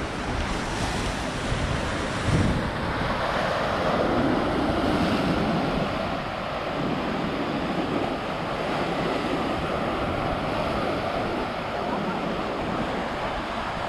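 Sea surf washing against a rocky shore, with wind rumbling on the microphone.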